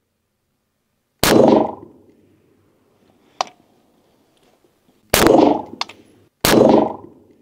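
Three shots from a semi-automatic AR rifle: one about a second in, then two more about a second apart near the end, each cut short with a brief ring-out. A single sharp click falls between the first and second shots.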